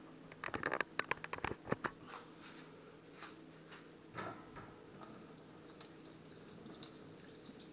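A quick run of clicks and knocks as things are handled at a stainless steel sink, one more knock about four seconds in, then the kitchen tap running faintly as a knife blade is rinsed under it.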